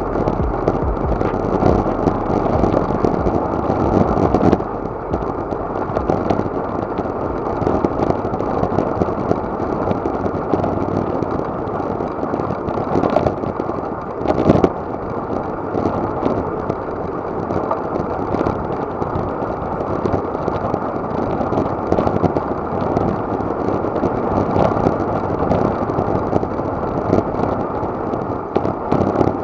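Steady rush of wind on an action camera's microphone and road noise from a road bicycle riding at speed, with a brief louder knock about halfway through.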